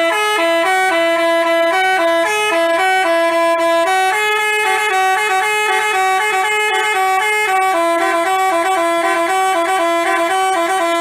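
Telolet basuri multi-tone bus horn playing a tune: several notes sound together and step up and down every fraction of a second, loud and steady in volume. It cuts off abruptly near the end.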